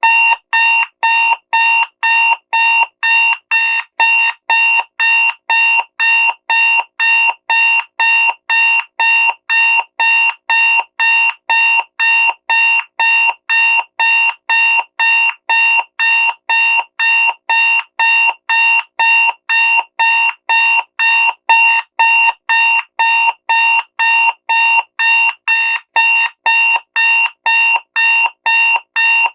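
Loud digital alarm clock beeping steadily, about two evenly spaced beeps a second, each the same shrill tone.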